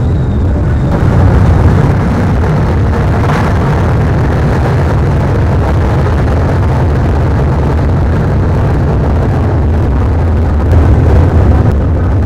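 Dirt-track modified race cars' V8 engines running together as a pack, a loud, steady low rumble that swells briefly about a second in and again near the end.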